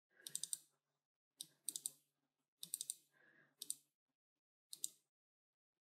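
Faint computer mouse button clicks in about six short groups, mostly quick pairs like double-clicks, with gaps of up to a second between them.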